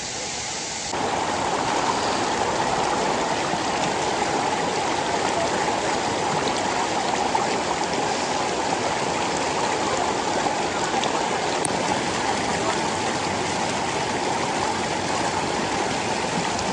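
Steady rushing of water falling at a waterfall. It gets louder about a second in.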